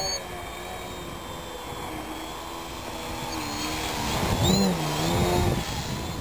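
Electric motor and propeller of a 40-inch 3DHS Edge 540 RC aerobatic plane, whining with the throttle being worked. The pitch climbs about three seconds in, then wavers up and down and is loudest as the plane passes close.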